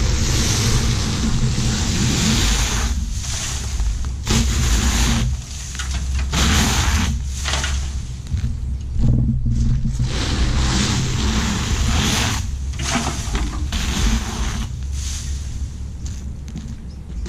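Leaf blower running: a steady engine drone under loud rushes of air that cut in and out every second or two as the blast is swung about.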